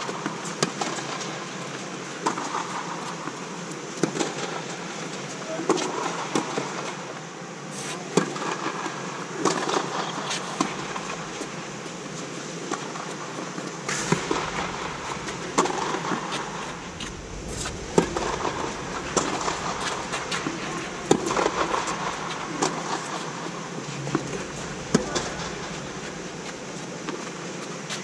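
Tennis racket strikes on the ball during rallies: sharp pops every second or two, back and forth between the two ends, over a steady hall hum.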